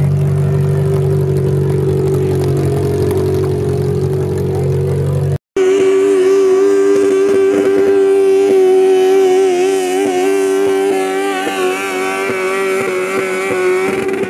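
Garden Modified pulling tractor engines at high revs. One engine runs steadily, then after a cut a garden puller runs at full throttle dragging the weight-transfer sled, holding a steady high pitch and easing a little near the end.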